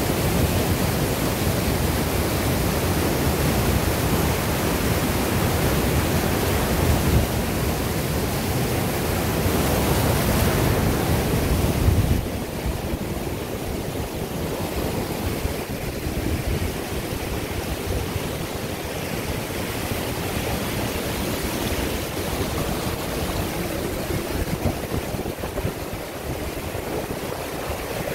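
Mountain stream rushing over a small waterfall and down a rocky whitewater chute: a steady roar of churning water. About twelve seconds in the deep rumble drops away abruptly, leaving a lighter, hissier rush.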